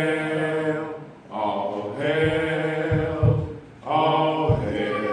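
A group of voices chanting a cappella in long, drawn-out notes, three held phrases in a row. Two dull thumps come in the second half.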